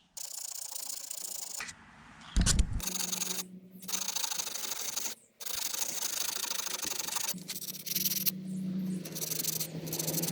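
Abrasive sanding of a corroded metal electrical contact: long stretches of scratchy rubbing with short pauses, cleaning off corrosion that caused a high-resistance fault and a no-start. A loud knock comes about two and a half seconds in.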